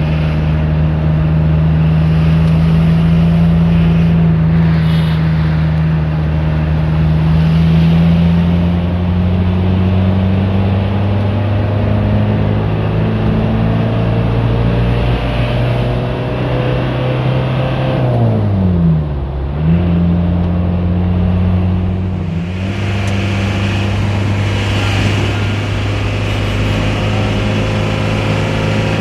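Car engine running steadily at road speed, a low even drone. About two-thirds of the way through, its pitch dips sharply and comes back up.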